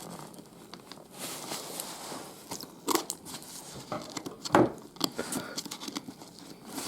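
Packaging being handled and unwrapped: crinkling and tearing with scattered clicks and knocks, the loudest about four and a half seconds in.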